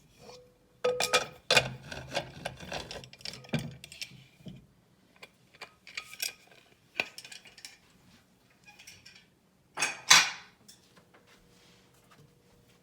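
Metal pressure cooker being opened: the lid and pot clatter and knock in a quick cluster, then a few scattered clinks, and a louder scrape of metal on metal about ten seconds in.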